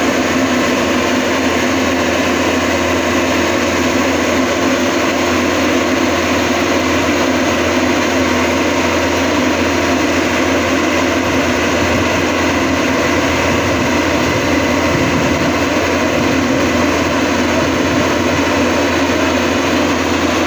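Maxxi Bimo 102 combine harvester's engine running steadily under load as the tracked machine crawls up the ramps onto a flatbed truck.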